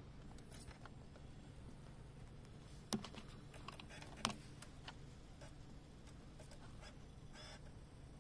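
Peugeot 407's 2.2-litre EW12J4 four-cylinder petrol engine on E85, idling steadily as a faint low hum heard from inside the cabin shortly after a cold start at −3 °C. Two sharp clicks about three and four seconds in.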